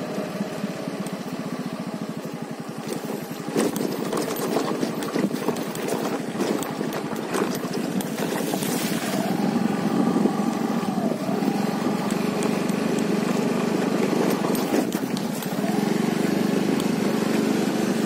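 Motorcycle engine running while riding, its note rising and falling a few times with the throttle, with scattered short knocks.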